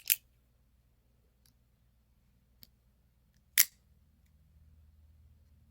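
Two sharp metallic clicks about three and a half seconds apart, with a faint tick between them, from the mechanism of a Milano lever-lock, swing-guard automatic stiletto switchblade being worked by hand.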